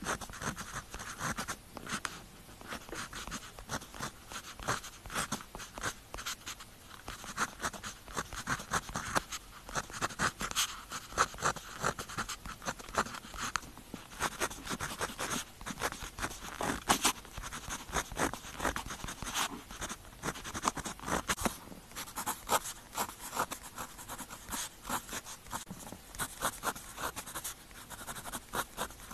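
Pen tip writing on paper: quick, irregular scratching strokes, close to the microphone.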